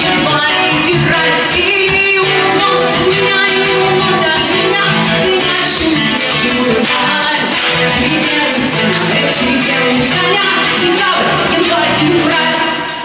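Live music: a voice singing a Russian song over guitar accompaniment, the music dipping in loudness near the end as the song closes.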